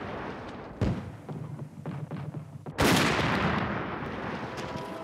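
Towed artillery guns firing: a sharp report about a second in, a few lighter shots after it, then a heavy blast just past halfway whose boom dies away slowly.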